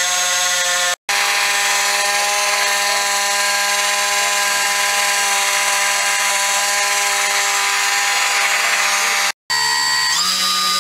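Small electric drone motor on a test stand running steadily, a loud constant whine with a buzzing hum. It drops out for a moment twice, and near the end the pitch steps up as the motor speeds up.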